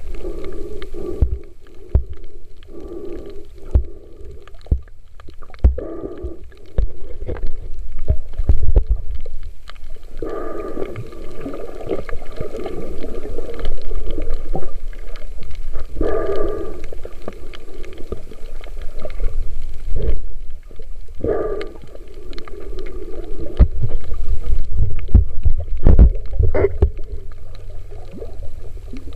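Muffled underwater sound from a camera held by a diver gathering sea urchins: a steady low water rumble with frequent small knocks, and a gurgling burst every few seconds.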